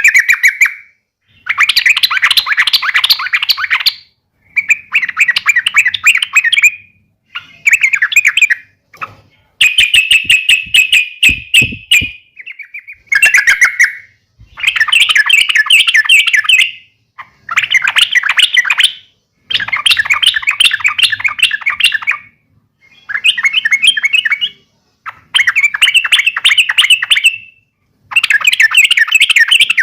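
Yellow-vented bulbul (trucukan) giving its fighting call: about a dozen bursts of rapid chattering notes, each lasting one to two and a half seconds, with short pauses between.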